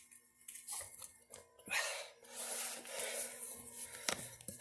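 Scattered light clicks and short rustling scrapes of small parts being handled.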